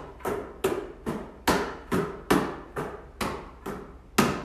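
A basketball slapping into the palms over and over as it is passed quickly hand to hand around the head, about two sharp slaps a second.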